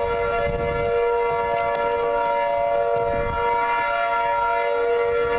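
Outdoor tornado warning siren sounding a steady tone during a siren test, holding its pitch and level evenly without rising or falling.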